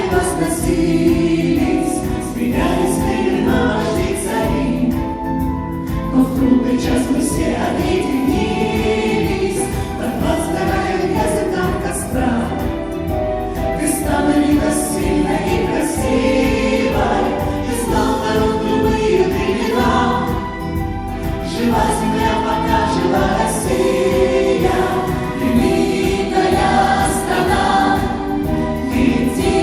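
A choir singing with instrumental accompaniment and a steady beat, live.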